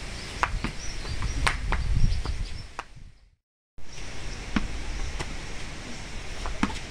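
Outdoor ambience: scattered short sharp clicks and faint high chirps over a low rumble. The sound cuts out completely for about half a second midway.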